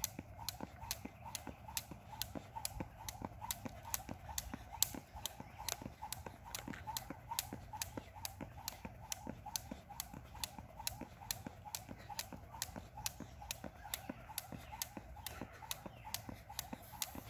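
Jump rope cord slapping the asphalt on every turn, with sneakers landing, in a steady, even rhythm of roughly two to three slaps a second.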